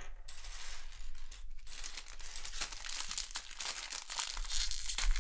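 Plastic LEGO parts bags crinkling and rustling as they are handled, getting louder near the end.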